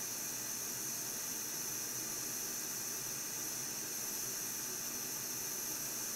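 Steady, even hiss, strongest high up, with no clicks or changes.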